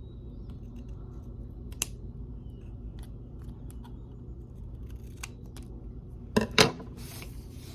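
Scissors snipping through folded paper strips to trim off the uneven edges: scattered small clicks and snips, with two louder snips close together about six and a half seconds in, over a steady low hum.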